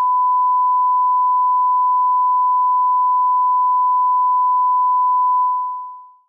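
Steady 1 kHz sine-wave line-up tone of the kind played with broadcast colour bars: one unchanging pitch that fades out near the end.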